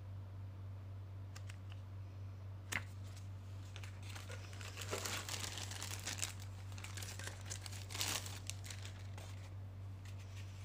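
Clear plastic bag crinkling as it is handled and slid off a router, in a run of crackles from about four and a half seconds to about nine seconds in. A single sharp click comes about three seconds in.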